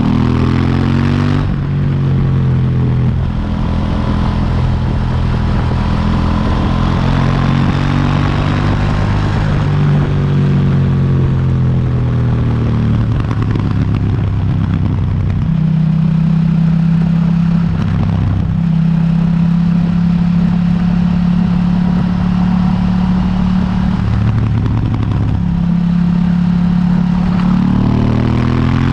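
KTM 790 Duke's stock 799 cc parallel-twin engine pulling through the gears. The pitch climbs and drops sharply at each change, then holds steady at a constant speed for several seconds in the second half before climbing again near the end.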